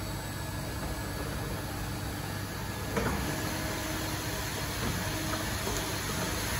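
Steady low machinery hum with a hiss, and one short knock about three seconds in.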